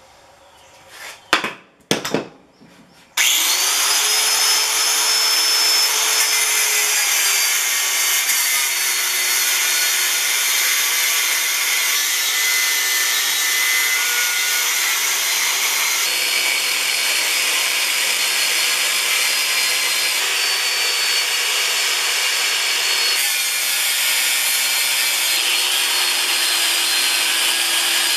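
Two sharp knocks, then about three seconds in a corded angle grinder starts and cuts into a steel housing: a loud, steady grinding noise with a high whine that sags a little in pitch as the cutting disc bites.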